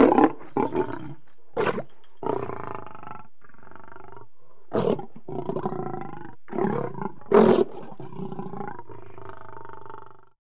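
Lion growling: a continuous low growl broken by about half a dozen louder, sudden growls. The sound stops shortly before the end.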